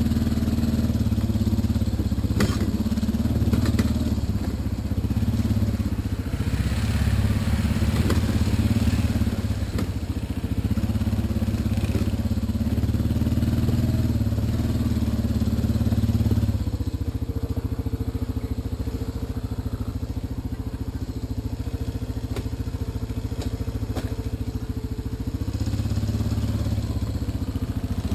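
ATV engine running under load as the quad climbs over a rough, rooty dirt trail, with knocks and rattles from the bumps. About halfway through the engine settles to a lower, steadier note for several seconds, then picks up again near the end.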